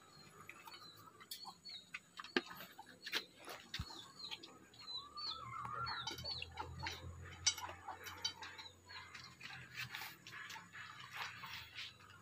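Belgian Malinois eating from a stainless steel bowl: irregular crunches and clicks as it chews kibble and carrot. Small birds chirp faintly in the background.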